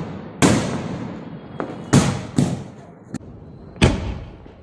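Aerial shells from a 24-shot fireworks cake bursting overhead: three loud bangs about one and a half to two seconds apart, each trailing off in a long echo, with two smaller, sharper cracks between them.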